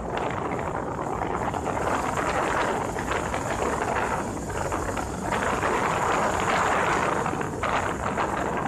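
Wind buffeting the microphone over the road noise of a moving vehicle, a steady rushing that swells and dips.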